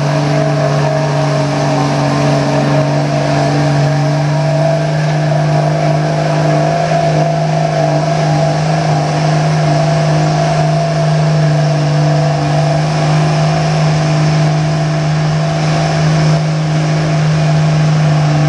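Dodge Ram pickup's Cummins turbodiesel held at steady high revs under full load, dragging a weight-transfer pulling sled down the track. The engine note stays steady and does not change pitch.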